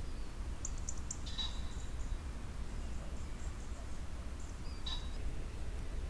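Steady low outdoor rumble and hiss, with a few faint, short high-pitched chirps about a second in and again near five seconds.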